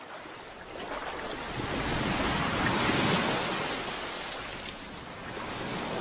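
Ocean surf washing against a rocky shore. One wave swells up and dies away.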